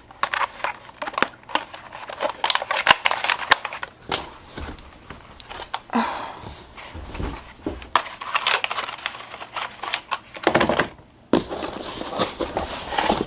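Plastic packaging crinkling and rustling as boxed items and trays are handled, with irregular clicks and taps.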